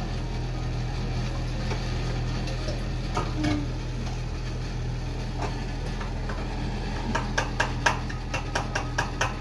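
A spoon stirring in a cup, clinking against its side in a quick run of clinks about four or five a second near the end, after a few scattered knocks of things being handled on the sink.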